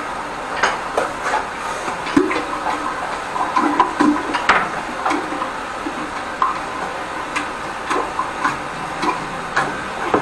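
High-pressure drain-jetting hose with a turbo drill nozzle working in a squat toilet's clogged drain: a steady hiss of jetting water under irregular clicks and knocks as the hose is fed in and strikes the bowl and pipe.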